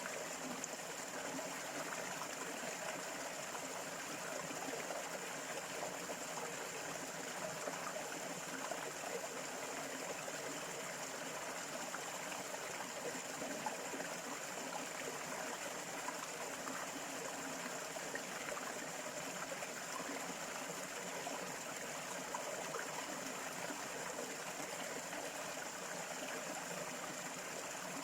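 A stream flowing steadily, water trickling and gurgling, with a thin steady high tone above it.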